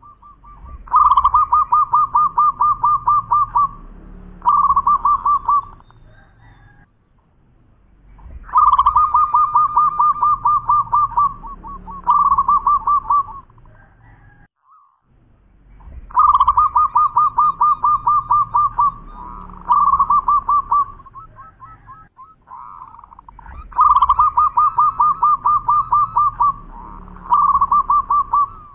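Zebra dove (perkutut) singing its cooing song four times over, a few seconds apart. Each song is a long fast run of cooing notes, followed after a short break by a shorter run.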